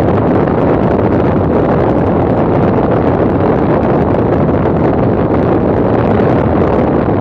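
Steady rush of airflow over the microphone of a camera mounted outside an ultralight aircraft in flight at about 180 km/h, blended with the drone of the aircraft.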